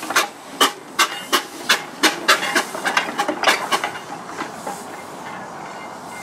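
A 1906 H.K. Porter compressed-air mine locomotive getting under way, its cylinders exhausting air in sharp chuffs about three a second. About four seconds in, the chuffs fade into a steady hiss as the locomotive moves off down the track.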